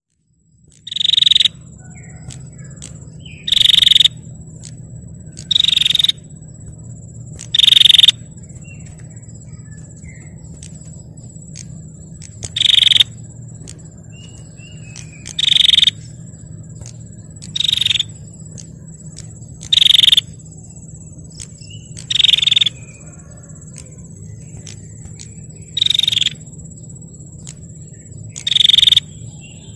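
Female prinia (prenjak) calling: short, loud trilled bursts of about half a second, repeated every two to three seconds, eleven in all, over a steady high thin tone and a low hum.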